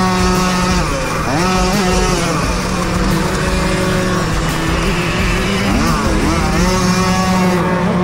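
Tuned Puch Maxi racing moped's small two-stroke engine revving up and easing off over and over under throttle. Its pitch climbs, holds and drops every second or two.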